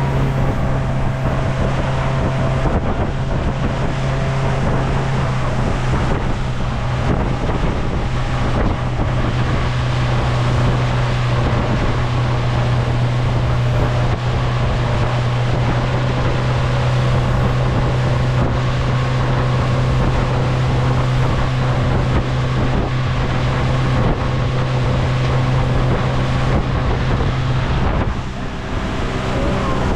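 Motorboat engine running steadily under way, a constant low hum, with wind buffeting the microphone. The engine note drops and changes about two seconds before the end, as if the throttle is eased.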